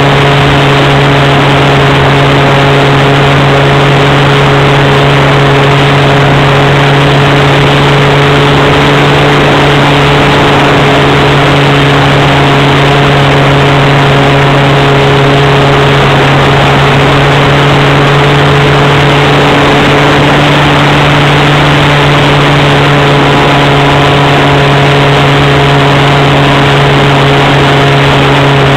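Swift 40 model plane's .46 nitro glow engine running at a steady high throttle in flight, loud and close through the onboard wing camera's microphone, its pitch holding almost constant.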